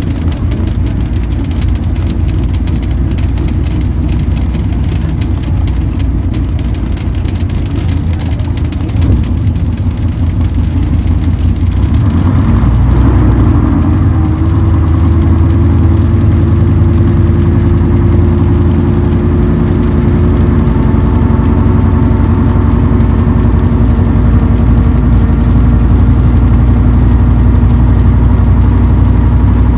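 Bristol K5G bus's five-cylinder Gardner 5LW diesel engine heard from inside the lower saloon as the bus drives along. About twelve seconds in, the engine grows louder and a whine joins in, rising slowly in pitch.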